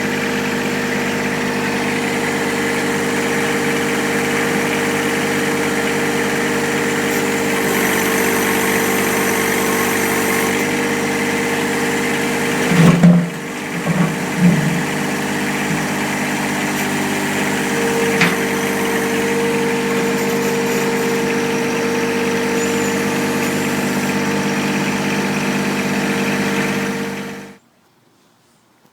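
John Deere 1023E compact tractor's three-cylinder diesel engine running steadily during backhoe work, with two or three loud thumps about halfway through. The sound cuts off abruptly shortly before the end.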